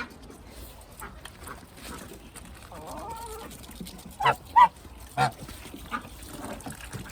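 Domestic goose honking: three short, loud honks a little past the middle, with fainter duck calls around them.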